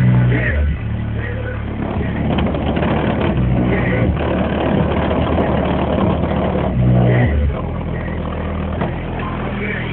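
Audiobahn Jackhammer car subwoofers playing a bass-heavy song loud, with long deep bass notes stepping between pitches every half second to a second.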